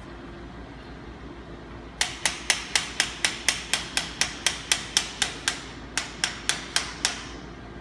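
Hammer tapping rapidly on the brake handle assembly of a drywall flat box handle, knocking it loose: about twenty sharp strikes at roughly four a second, starting about two seconds in, with a brief pause near the end.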